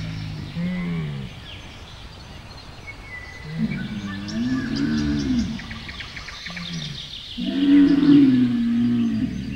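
Dromedary camel calling: low calls that bend up and down in pitch, in three stretches, the loudest near the end. Birds chirp faintly in the background.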